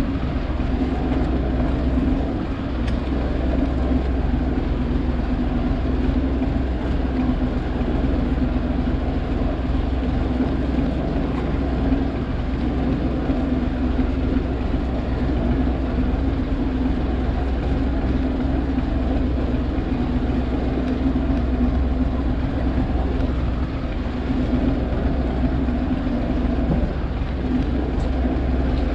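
Fishing boat's inboard engine running steadily at low revs, a continuous deep hum.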